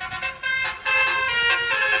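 Bus 'basuri' telolet musical horn playing a tune of stepped notes, several horn tones sounding together, broken by a couple of brief gaps in the first second.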